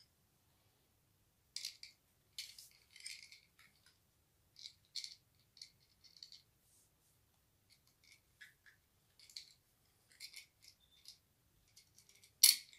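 Small screws and metal 3D-printer parts clinking and rattling as they are handled and fitted by hand, in scattered light clicks with one sharper click near the end.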